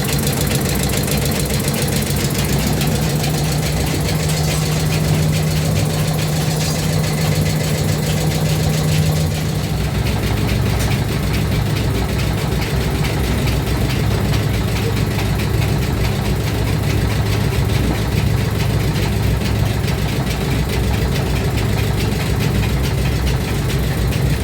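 Engine running steadily; about ten seconds in, its note drops to a lower pitch.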